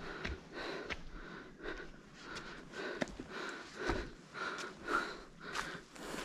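A walker's breathing close to the microphone, quick even breaths about two a second, with footsteps on stone steps.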